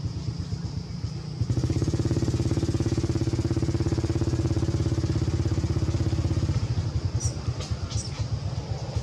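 A motor engine running with a steady low, fast pulsing, louder for a few seconds in the middle. A few short high chirps come in near the end.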